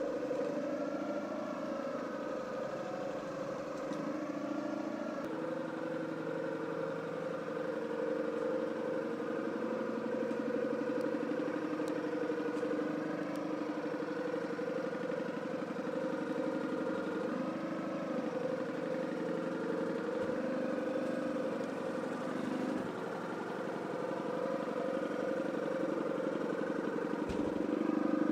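Motor of an Autovis KAC-7000 cordless spin wet mop running steadily, spinning its mop pads, with a continuous hum whose pitch wavers slightly.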